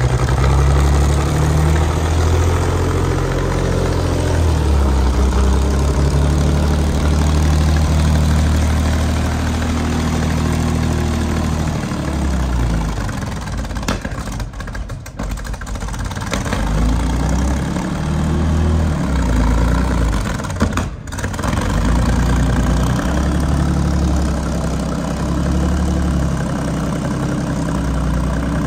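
Centurion ARV's Rolls-Royce Meteor V12 petrol engine running rough, its revs rising and falling several times. It sounds awful and runs like a V6: only one carburettor is feeding the whole engine, so it is down to about half its power.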